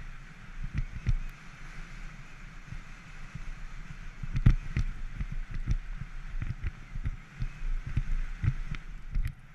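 Banshee Legend downhill mountain bike descending a dirt and gravel track: tyres rolling with a steady hiss, and irregular thumps and rattles of the bike over bumps. The biggest knock comes about four and a half seconds in.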